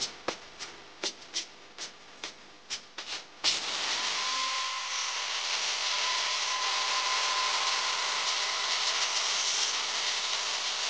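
Steel chain links clicking and clinking as the chain is handled on a flat steel bar. About three and a half seconds in, an angle grinder with a thin cutting disc starts suddenly and runs steadily, cutting through the chain.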